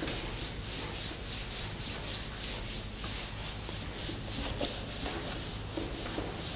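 Whiteboard eraser wiped back and forth across a whiteboard: a quick, even run of rubbing strokes, about three a second.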